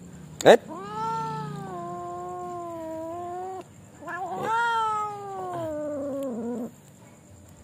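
Domestic cat grumbling over its food: two long, drawn-out calls of about three seconds each, the second sliding down in pitch at the end, with a brief sharp sound just before the first.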